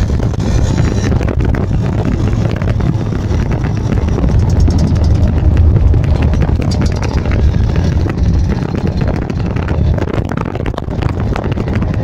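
Vespa scooter engines running on the move, a steady low drone with wind buffeting the microphone.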